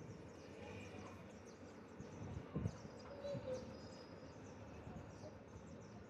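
Faint background ambience with scattered high chirps, and a couple of soft low thumps a little over two seconds in and again about a second later.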